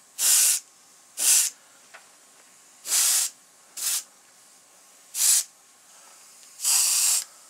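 Airbrush spraying paint in six short bursts of hiss, the last a little longer, laying light coats of paint on a mounted fish's fins.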